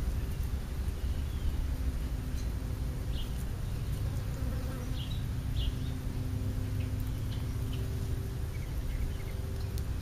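A steady low buzzing hum, with a few short, faint chirps from sparrows at the feeding spot over it.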